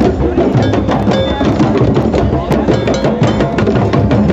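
Drum circle: many hand drums, djembes among them, playing together in a dense, fast, steady rhythm.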